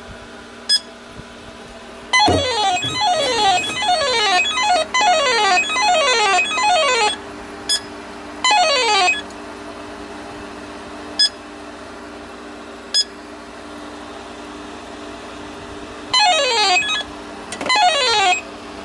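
Electronic chirping: bursts of quickly repeated falling pitch sweeps, three times, with a few single short beeps in between, over a steady low hum.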